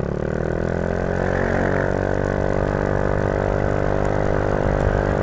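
A motor vehicle's engine droning with a strong, even pitch. It rises slightly at first, holds steady, and stops abruptly about five seconds in.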